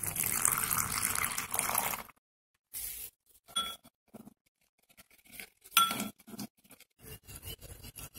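Water pouring into a bowl of flour for about two seconds, then a metal spoon stirring the flour into a batter, scraping and clinking against the bowl, with a sharp ringing clink about six seconds in.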